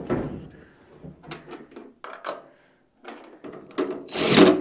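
Scattered light knocks and clinks of hands and hardware working at a truck's steel front fender during fitting, then a short, loud rasping burst near the end.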